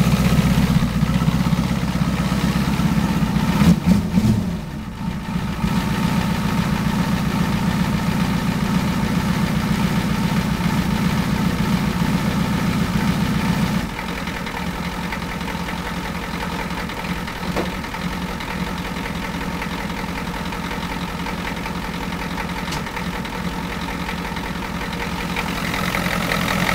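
1992 Ford F-350's engine idling steadily just after a hard cold start. It gets a little quieter about halfway through.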